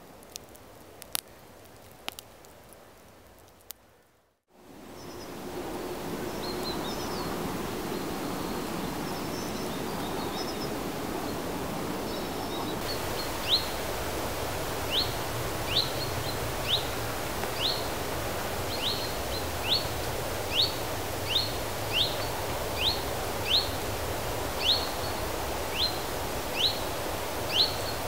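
Outdoor woodland ambience: a steady rushing background with a bird repeating one short, high, falling note about once a second through the second half. The opening seconds are quieter, with a few clicks, before a brief cut to silence.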